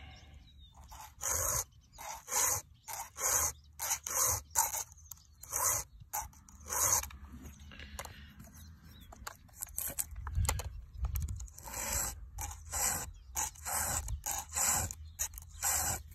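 A dog making short, noisy sounds in quick succession, about two a second, pausing for a couple of seconds midway.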